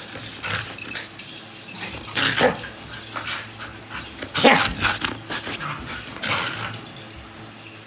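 Siberian husky vocalizing in excited play: a handful of short, rough calls about two seconds apart, the loudest near the middle.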